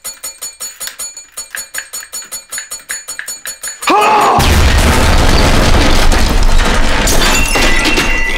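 A small bell dinged rapidly over and over, about five dings a second, for roughly four seconds. Then a man gives a short yell and a bomb explosion goes off, very loud, with a long low rumble and crashing debris. Near the end a fire alarm starts to beep.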